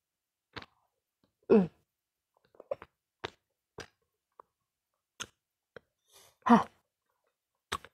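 A woman eating very spicy chili-sauced cilok, with short breathy voiced sounds from the burning heat: two louder ones falling in pitch, about a second and a half in and again near the end. Between them come scattered wet mouth clicks and smacks from chewing.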